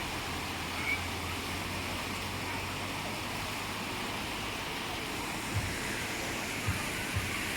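Steady rush of water in an artificial wave pool, with a low hum under the first half and a few short low thumps in the second half.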